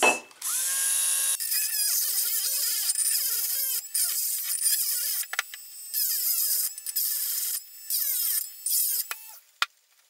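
Small handheld cordless rotary tool grinding a hole through a small decorative piece in short on-off runs, its high whine sagging in pitch as the bit bites. The tool is too weak for the job, in its user's words not as powerful as a drill.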